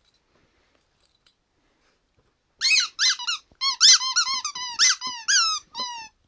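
Rubber squeaky toy chewed by a dog: after a quiet start, a quick run of about a dozen short squeaks, each dipping in pitch.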